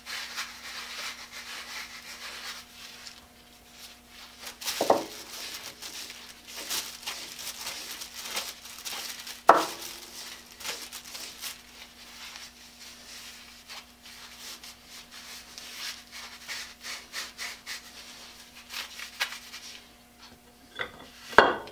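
A rag rubbing boiled linseed oil into wooden saw handles, in quick repeated wiping strokes. Three louder knocks come about 5 and 10 seconds in and just before the end.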